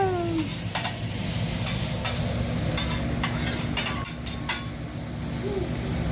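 Food sizzling on a hibachi flat-top griddle, with a metal spatula clicking and scraping against the hot steel about eight times in the first five seconds.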